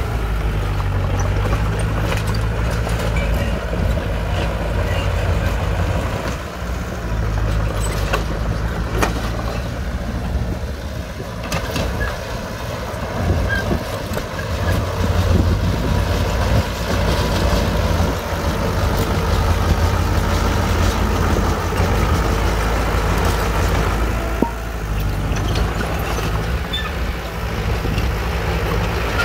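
Bulldozer's diesel engine running steadily, with scattered sharp clanks and knocks over it.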